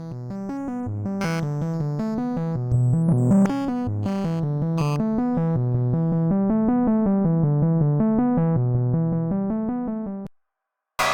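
Synthesizer playing a fast, repeating sequence of short notes in a low register, run through the Glitchmachines Subvert distortion plugin. It stops abruptly about ten seconds in, and a noisy, cymbal-like crash starts just at the end.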